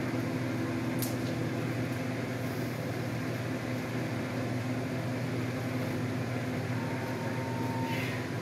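Steady electrical machine hum, as of a motor or fan running, with a single sharp click about a second in.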